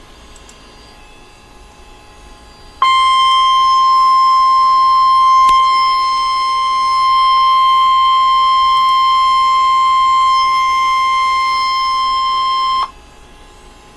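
Weather-radio 1050 Hz warning alarm tone: a single steady high tone held for about ten seconds, starting about three seconds in after low hiss and cutting off sharply. It is the alert signal that announces a severe thunderstorm warning.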